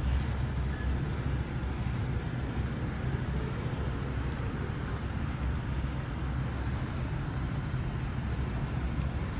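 Steady low outdoor rumble, with a few faint short clicks.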